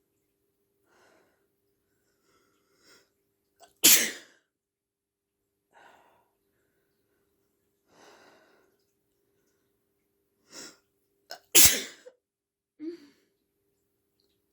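Two loud, induced human sneezes, one about four seconds in and one near the end, each a short sharp blast.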